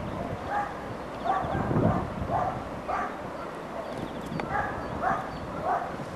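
A dog barking repeatedly, short barks about half a second apart in two runs with a brief pause between them, over a steady rush of background noise.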